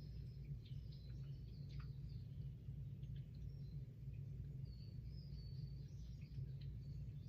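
Quiet room tone with a steady low hum, faint high bird chirps now and then, and a few soft clicks.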